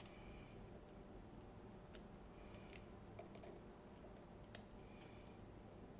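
Faint, sparse clicks and ticks of a lock pick working the spool pins inside an ABUS TS 5000 pin-tumbler cylinder under tension, about four or five small clicks spread across the stretch.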